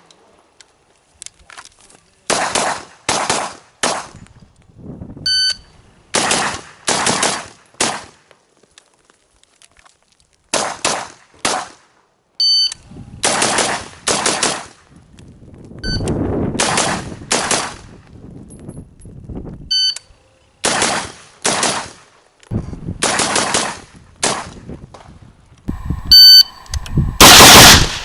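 AR-15 rifle shots fired in quick strings of two or three, with pauses of a second or two between strings; the string near the end is the loudest. A few short electronic beeps sound between some strings.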